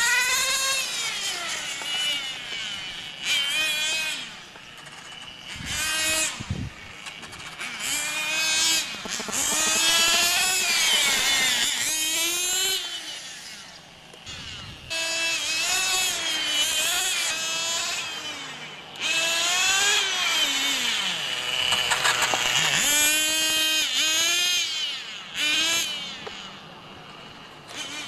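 Radio-controlled model racing motorcycle's small motor revving up and down, its high whine rising and falling in pitch over and over, dropping low briefly about three quarters of the way through before climbing again.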